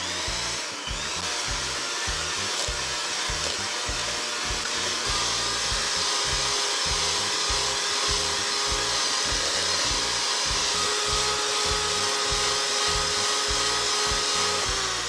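Oster electric hand mixer running steadily, its beaters creaming butter and sugar in a plastic bowl.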